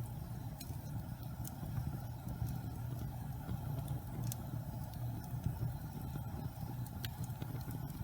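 Wood fire burning in a fireplace: a steady low rumble with scattered sharp crackles and pops every second or so.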